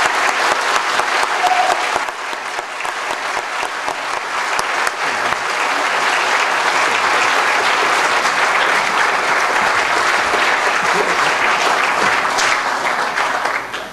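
Audience applauding, the clapping of a large crowd. It eases a little early on, swells back up and holds, then stops fairly suddenly near the end.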